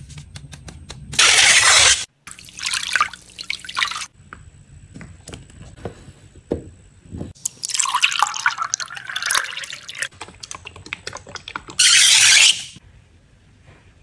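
A liquid quicksand shaker tile, an acrylic case of quicksand oil with glitter and sequins, being tilted and turned in the hands: the oil sloshing and trickling inside, with small clicks of the case in the hand. Two short loud rushes of noise come about a second in and near the end.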